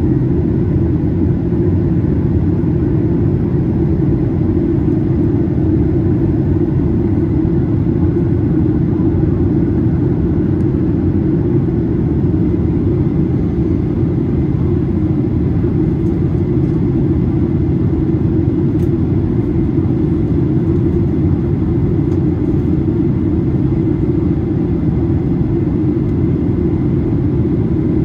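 Steady low rumble inside the cabin of a Boeing 737-800 in flight, from its CFM56-7B engines and the airflow along the fuselage.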